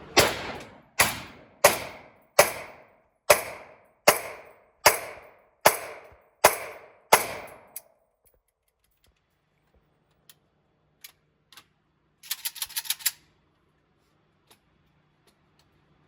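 Ten gunshots fired at a steady pace, a little under a second apart, each with a ringing tail. A few seconds later come a few light clicks and a brief metallic rattle.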